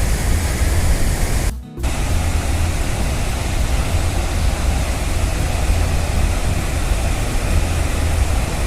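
Steady, loud roar of the Athirappilly waterfall, a large river waterfall plunging onto rock. It cuts out briefly about a second and a half in, then resumes.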